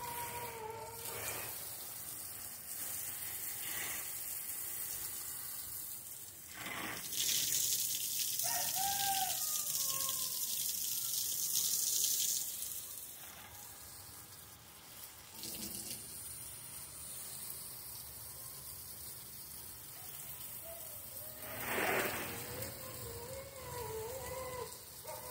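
A dog on the other side of a wooden fence whining: a high wavering whine at the start, a short rising-and-falling whimper about nine seconds in, and long wavering whines again near the end. A steady hiss, louder than the whining, runs between about seven and twelve seconds in, and there are a few brief knocks.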